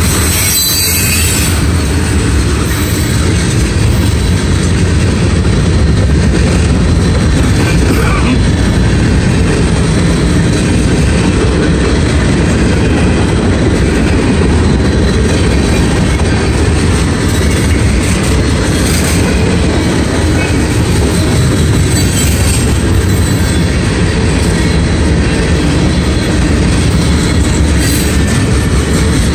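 Freight cars of a mixed manifest train rolling past at close range: a steady, loud rumble of steel wheels on the rails that does not let up.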